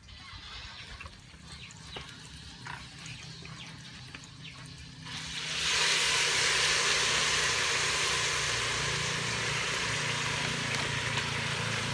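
Pot of taro (gabi) cooking over a wood fire, sizzling and bubbling with a loud, steady hiss that starts about five seconds in as it is stirred with a ladle. Before that, a few faint chirps.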